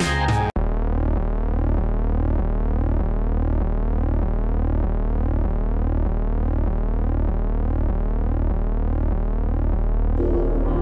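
Background electronic music of repeated rising synth sweeps over a steady bass, starting after an abrupt cut from a guitar track about half a second in.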